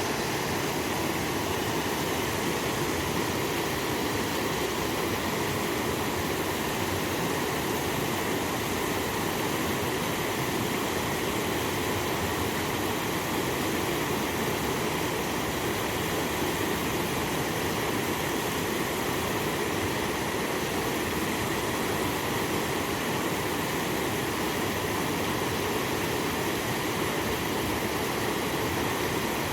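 Steady rushing of river water flowing past the bridge, an even unbroken noise.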